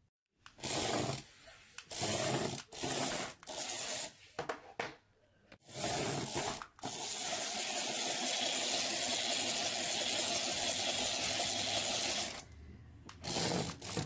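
The small geared motor of a remote-control toy poop whirring as the toy drives around. It runs in short bursts with abrupt gaps at first, then keeps going steadily for several seconds before stopping near the end.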